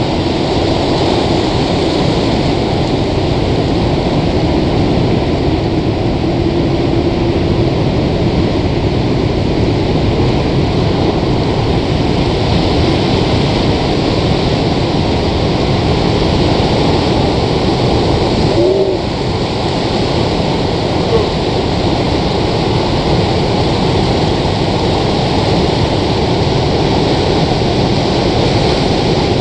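Breaking surf heard as a loud, steady rushing noise that barely rises or falls.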